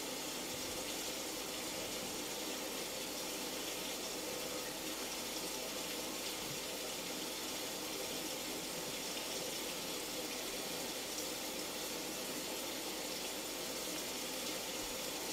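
Steady, even hiss of falling rain, unchanging throughout.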